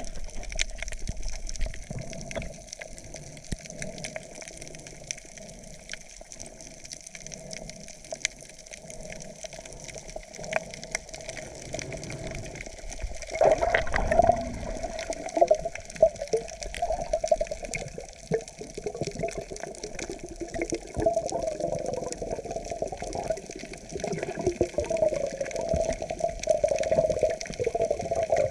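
Underwater sound picked up by a camera submerged in the sea: muffled water movement and bubbling with scattered small clicks, growing louder and more bubbly about halfway through.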